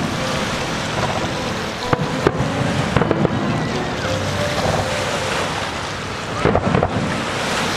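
Fireworks shells going off in quick clusters of sharp bangs, about two, three and six and a half seconds in, over a steady rushing noise.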